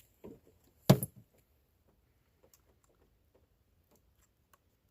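Hand tools clinking against metal during spark plug removal: one sharp metallic click about a second in, with a few faint small ticks after.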